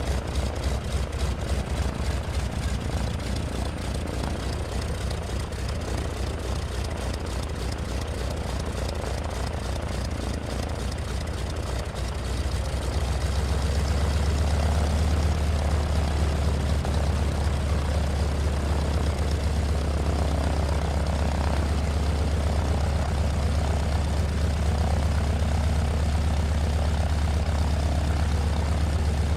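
Helicopter running, with a rapid even chop of the rotor blades. About 13 seconds in it grows louder and settles into a steady low hum.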